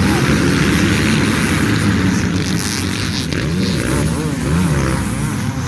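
A pack of off-road dirt bike engines revving hard together as the racers pull away from the start. Several engines overlap, their revs rising and falling through the gears around the middle.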